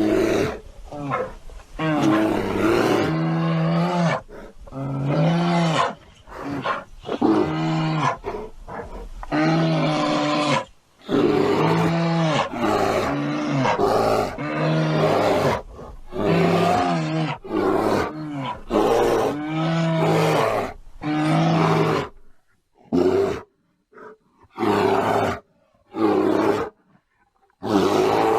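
A bear roar sound effect, played over and over in quick succession, standing in for laughter. Toward the end the roars come shorter and farther apart.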